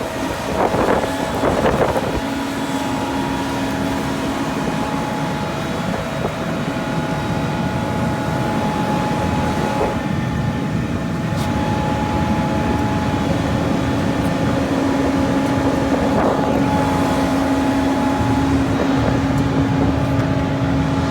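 Large John Deere harvest machine running steadily under load, a loud engine drone with steady whining tones, heard from inside the machine. There are a few rattling knocks near the start and again about two-thirds of the way through.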